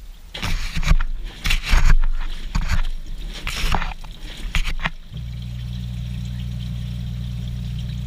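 Front-loading washing machine heard from inside its drum: wet clothes and water slosh and splash in irregular bursts as the drum turns. About five seconds in, the tumbling stops and a steady low machine hum with running water takes over.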